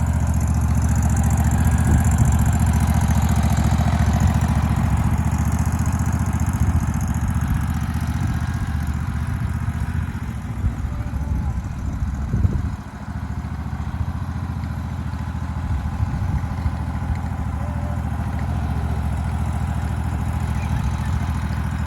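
Zero-turn riding lawn mower's engine running steadily as the mower is driven around, with a brief drop in level about halfway through.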